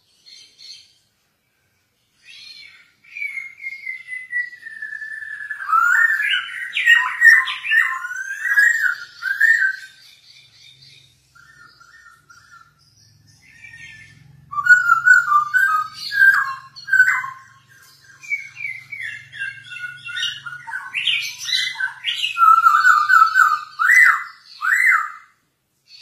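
Caged poksay hongkong (black-throated laughingthrush) singing. After a short silence it gives a long falling whistle that breaks into rapid, varied whistled warbling. A few seconds later it bursts into more loud, fast, varied phrases.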